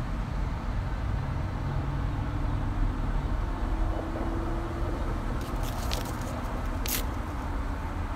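Steady low rumble of outdoor street traffic. Near the end come a few brief papery rustles and rips as a paper flyer is pulled off a tree trunk.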